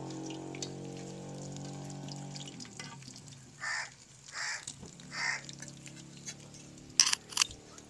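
A steady hum for the first couple of seconds, then three short harsh crow caws about a second apart. Two sharp metal clinks near the end, like a wire skimmer knocking on an aluminium karahi of frying pakoras.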